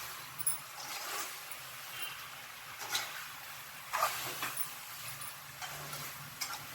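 Chicken and ground masala sizzling in a pan while being stirred, with a few sharp knocks of the ladle against the pan, the loudest about four seconds in.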